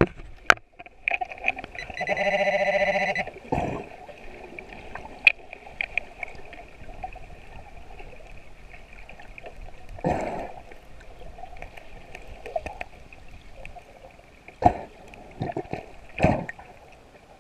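Underwater metal detector under the sea giving a steady tone with an even buzz for about a second, roughly two seconds in, over a faint constant hum. Several short rushes of water break in later as the sand is fanned and stirred.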